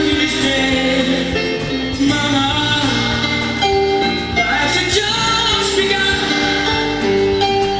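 A song with singing over instrumental backing, played back from a vinyl record on a turntable.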